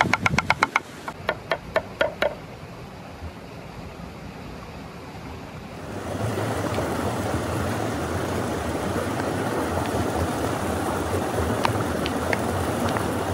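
A cleaver chopping a green chili on a wooden cutting board: a quick run of chops at the start, then a few slower ones up to about two seconds in. From about six seconds in, the steady rush of a stream takes over, with a few faint clicks as a wooden spoon stirs the salad in a wooden bowl.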